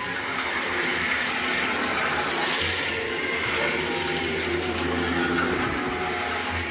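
Dodol stirring machine running, a steady motor hum with the churning noise of the stirrer.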